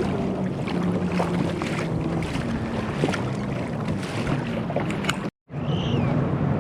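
Wind rushing over the microphone on open water, with a steady low motor hum under it and scattered small knocks. The sound cuts out for an instant about five seconds in.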